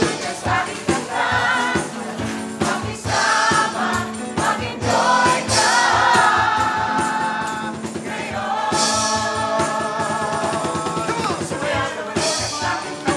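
Live band music with a group of voices singing together over it: congas and bongos beaten with sticks in a steady beat, with tambourine, cymbal and strummed acoustic guitar. The voices hold long notes through the middle.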